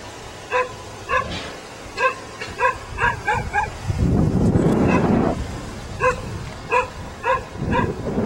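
A dog barking repeatedly in short, sharp barks, a dozen or so spread unevenly through the moment. A louder low rushing noise covers the barking for over a second about four seconds in, and briefly again near the end.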